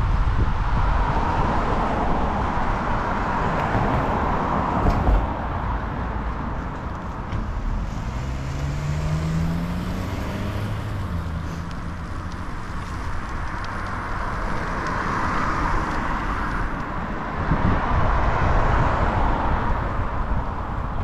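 Car traffic going by on a city street, heard over a low rumble of wind on the microphone from riding. About eight seconds in, an engine note rises in pitch for a couple of seconds.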